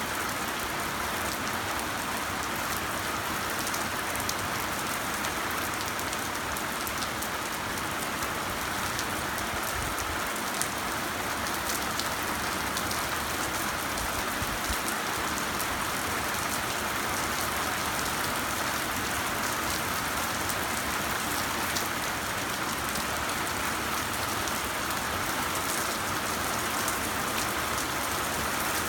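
Heavy rain pouring down steadily, a dense even hiss of drops hitting surfaces.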